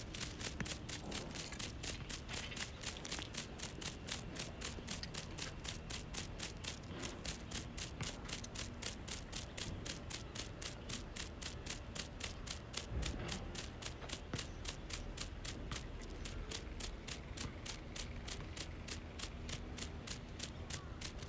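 Fishing reel being cranked to retrieve a jig-sabiki rig, giving a steady run of clicks, about three to four a second.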